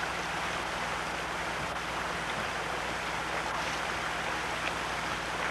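Steady rush of river water: an even hiss of flowing current, with a faint low steady hum beneath it.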